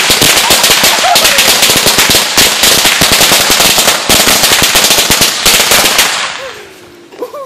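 A string of firecrackers going off in a rapid, continuous run of sharp cracks, many per second. The cracks die away about six seconds in.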